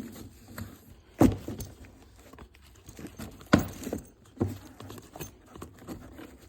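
A tool bag and its contents being handled: two sharp knocks, about a second in and about three and a half seconds in, a softer one soon after, and light rustling and rattling between them.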